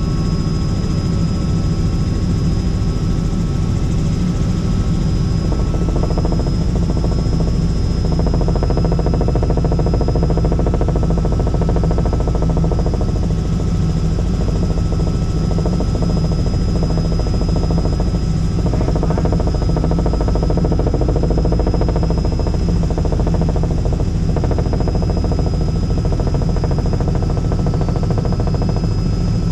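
Helicopter in flight, heard from inside the cabin: a loud, steady drone of the rotor and engine with a rapid beating underneath and a faint, steady high whine on top.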